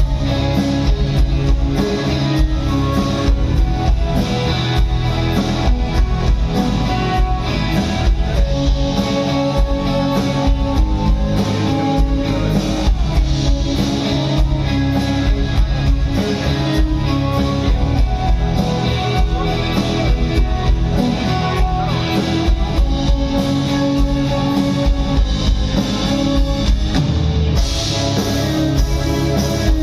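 Live rock band playing an instrumental passage with guitars and a drum kit, with no singing.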